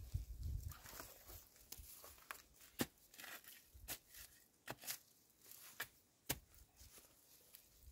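A shovel working soil and dry leaf litter: faint crunching and scraping, with a few sharp clicks.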